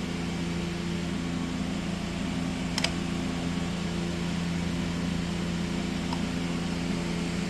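Enco vertical milling machine running steadily on its two-speed three-phase motor, a constant hum of several steady tones. A single sharp click sounds about three seconds in.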